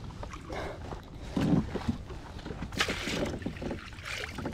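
A hooked bass splashing at the water's surface beside a kayak as it is brought in, among irregular knocks and rustles of line and rod handling. The loudest knock comes about a second and a half in.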